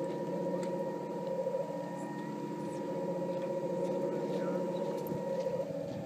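Steady motor hum of a radio-controlled model tug boat, with a thin high whine that cuts off about five and a half seconds in.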